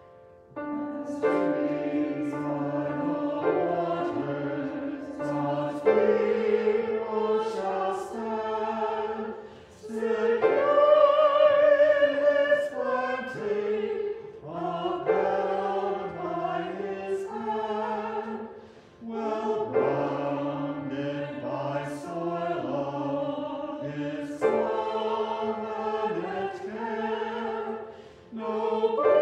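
Church choir singing an anthem in phrases, coming in about a second in over a held chord, with short breaks between phrases.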